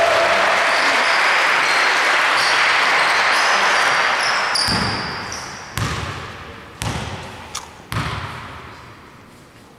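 Crowd applause in a large hall dies away over the first few seconds. Then a basketball bounces several times on the hardwood court, about a second apart, with each bounce echoing in the sports hall: a player bouncing the ball before a free throw.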